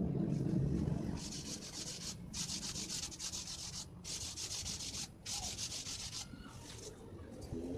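Scratchy rubbing of paint being worked over a styrofoam sheet by hand: four strokes of about a second each, with short breaks between them.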